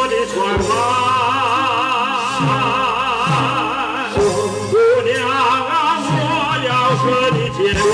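Live stage singing with a wide vibrato, amplified through microphones over a live band's accompaniment.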